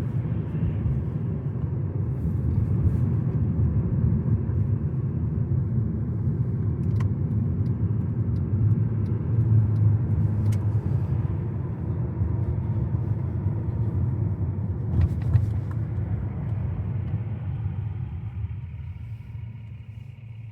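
Car driving on a snowy road, heard from inside the cabin: a steady low rumble of engine and tyres that grows quieter over the last few seconds.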